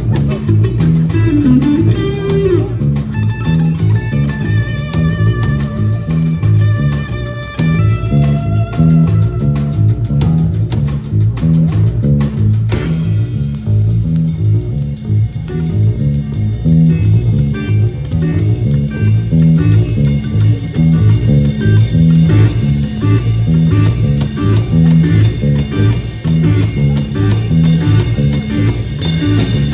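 Live rock band playing an instrumental passage: a lead electric guitar plays a melody with wavering, vibrato notes over a steady bass line. About halfway through, the band's sound grows fuller and denser.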